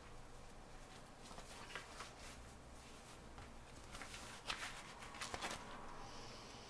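Faint handling sounds: the rustle of a fabric work glove being pulled on, with a few soft taps and clicks, the sharpest about four to five and a half seconds in.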